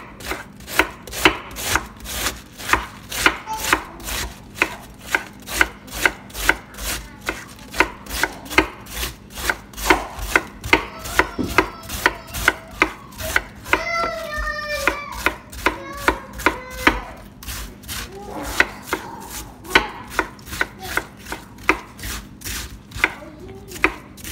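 A sharp kitchen knife slicing a wedge of raw green cabbage into thin shreds, about three cuts a second. Each stroke shears through the crisp leaves and taps onto a wooden cutting board.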